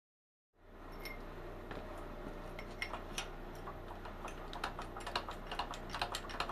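Irregular light clicks and ticks, coming more often toward the end, over a steady low hum.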